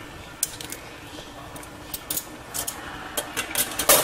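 Kitchen utensils clicking and clinking against cookware in a series of sharp, irregular taps that come faster and louder toward the end, with the loudest clink just before the end.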